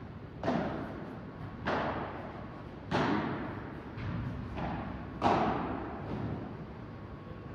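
Padel ball hits in a rally: rackets striking the ball and the ball bouncing, each a sharp pop with an echo. Four loud hits about a second apart, with a few softer knocks between them.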